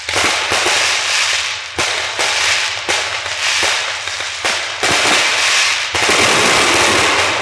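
Fireworks going off without a break: a dense crackle with sharp bangs about every half second to second.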